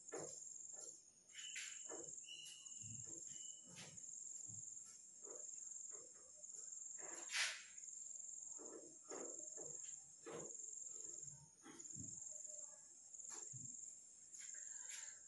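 A felt duster wiping a whiteboard in soft, faint strokes. Behind it runs a steady high-pitched trill, broken every second or two.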